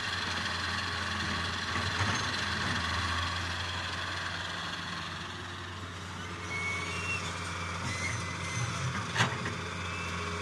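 Diesel engine of a Fiat-Hitachi wheeled excavator running steadily while the machine swings its arm and digs soil. There is a single sharp knock about nine seconds in.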